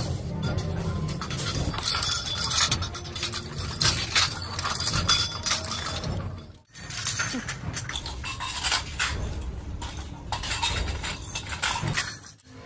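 Steel wire coil springs jangling and clinking as they are handled in bulk and dropped into empty metal oil-filter canisters: a dense, irregular rattle of metal on metal, with a brief gap about six and a half seconds in.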